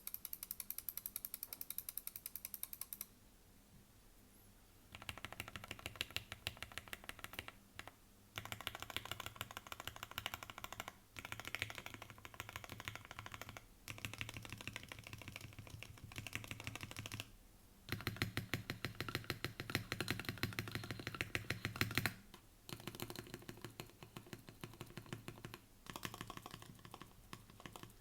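Tofu60 mechanical keyboard with lubed Gateron Milky Yellow linear switches and GMK-style keycaps being typed on, rapid keystroke clacks in bursts with short pauses between them.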